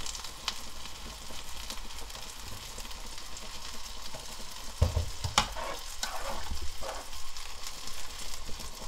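A pot of rice cake soup boiling hard, a steady bubbling hiss, while a metal spoon stirs it and taps against the pot. There is a louder knock with a dull thud about five seconds in.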